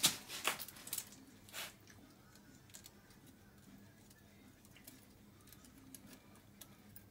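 A few short metallic scrapes in the first second and a half, then faint scattered ticks: a feeler gauge being slid in and worked between the rocker arm and valve stem of a 125 cc ATV engine to check the valve clearance.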